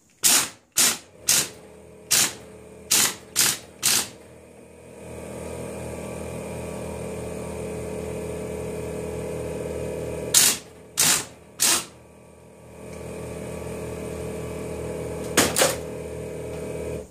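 Air impact wrench hammering in short bursts on the nut of a power steering pump's pulley: six quick bursts at the start, three more about ten seconds in, and another near the end. A steady machine hum starts about five seconds in and runs on under the later bursts.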